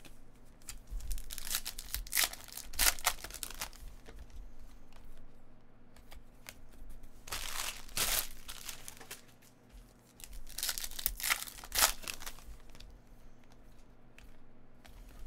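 Foil trading-card pack crinkling and being torn open by hand, in three bursts of crackling rustle with quieter handling between them.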